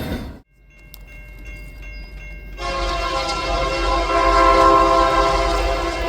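Loud train noise cuts off abruptly about half a second in, leaving a low rumble and faint distant tones. About two and a half seconds in, a locomotive air horn begins sounding a steady chord of several tones, swelling louder and held long.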